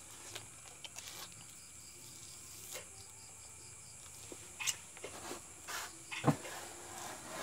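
Close-up mouth noises of a man biting into and sucking on a lemon wedge: scattered wet sucks, slurps and lip smacks. The loudest is a short, sharp sound about six seconds in.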